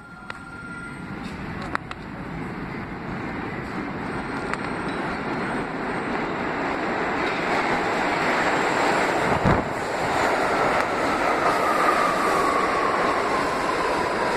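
New York City subway train approaching through the tunnel and pulling into the station, its rumble growing steadily louder. From about ten seconds in, a faint whine falls in pitch as the train slows, and there is a single thud just before it.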